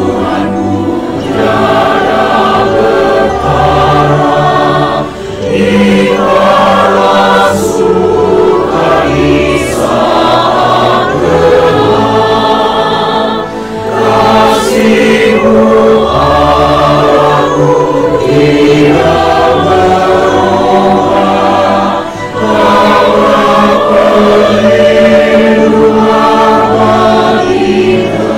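Mixed church choir singing an Indonesian hymn in parts, loud and sustained, phrase after phrase with brief breaths between.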